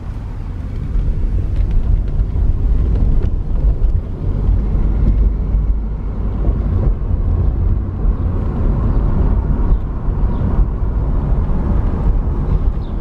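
Vehicle noise: a steady low rumble that grows louder about a second in.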